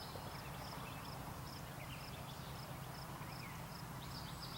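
Quiet outdoor background with faint birds chirping: a short high chirp repeated evenly, about two or three times a second, with a few softer calls under it.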